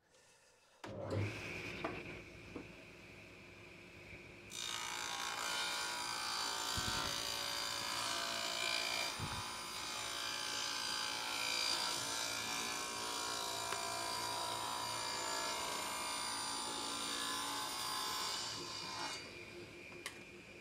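Table saw starting up about a second in and running free with a steady whine. From about four seconds in it rips a board of water-stained chestnut to width in one long, even cut lasting about fifteen seconds. Near the end it runs free again.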